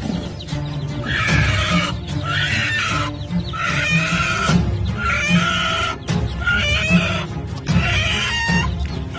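Repeated short, harsh bird calls, about one to two a second, over background music.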